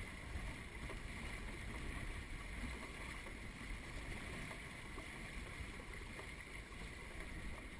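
Steady wash of water along the hulls of a small sailing trimaran under way in light air, with a low rumble of wind on the microphone.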